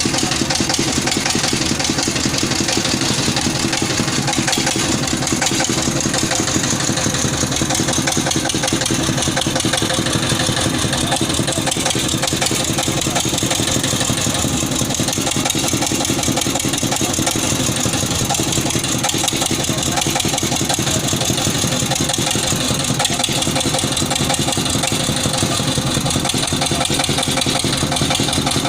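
Engine of a water-well boring machine running steadily, with a fast, even firing beat.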